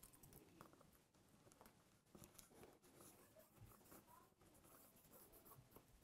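Very faint scratching and rustling of fingers picking and peeling old adhesive foam tape off the metal back of an iMac display panel, in scattered small scrapes.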